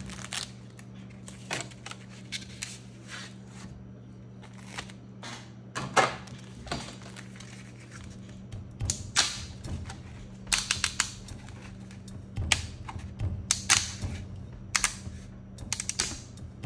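3D-printed chainmail links clicking and rattling against each other and the tray as the sheet is handled and flexed, in irregular bursts of sharp clicks that come thicker in the second half.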